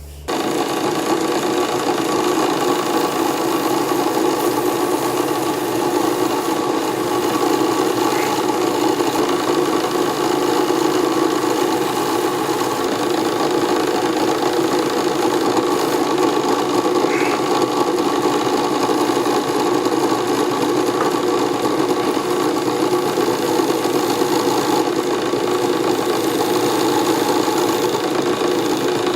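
Wood lathe motor switched on and running steadily with an even hum, spinning a purpleheart screwdriver handle for a CA glue finish.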